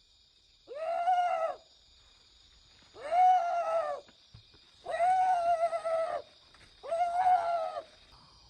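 An animal calling four times, each call a drawn-out wavering cry about a second long, spaced about two seconds apart, over a faint steady high-pitched hum.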